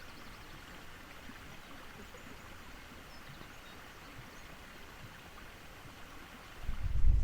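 Faint, steady outdoor ambience, an even soft hiss. Near the end a loud, ragged low rumble sets in and keeps building.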